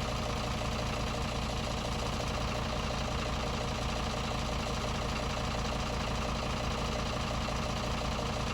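Farm tractor engine running steadily at a constant speed.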